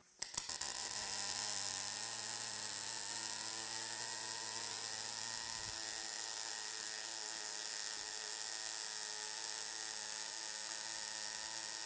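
MIG welding arc of a BOA-408i automatic bore welder's face welding gun running a bead around a part's face. A few sharp clicks as the arc strikes, then a steady hiss.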